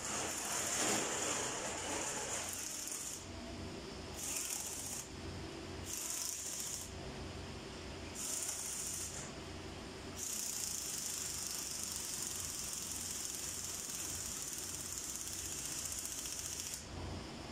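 Aerosol spray can hissing in bursts: a spray of about three seconds, three short squirts, then one long spray of about six seconds near the end, aimed onto the valve gear of the engine's cylinder heads.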